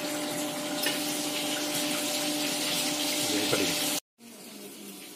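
Steady hiss with a low, even hum under it, cutting off suddenly about four seconds in and leaving faint room noise.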